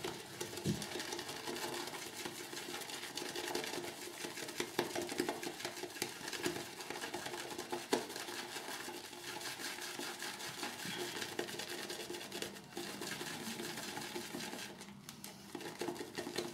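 RazoRock 24 mm Plissoft synthetic shaving brush whipping shaving-soap lather round a bowl after water has been added: a steady wet swishing with a fine, rapid crackle of bristles and foam, dipping briefly near the end.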